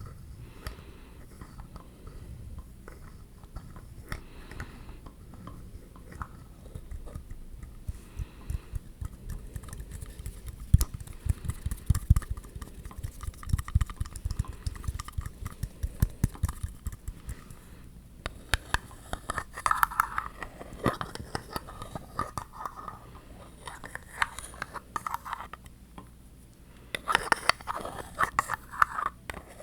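Light tapping and scratching on objects for ASMR: irregular taps, with a dense run of rapid taps through the middle and rougher scratchy passages later on.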